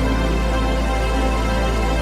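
Background music: sustained synth chords over a steady bass, with no other sound.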